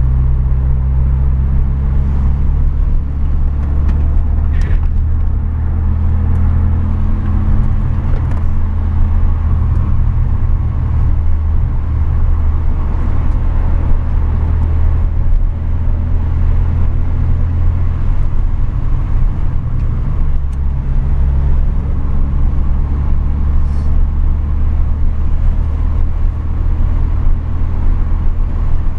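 In-cabin engine and road noise from a Renault Megane 225's turbocharged four-cylinder with an aftermarket exhaust, a steady low drone with little change in engine speed.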